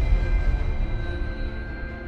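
Background music: deep, sustained low notes under held higher tones, dying away slowly after a heavy hit.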